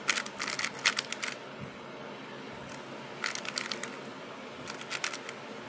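YJ MGC MagLev speed cube being turned fast, its layers clicking in quick runs: a run of about a second at the start, then shorter runs about three seconds in and near the end.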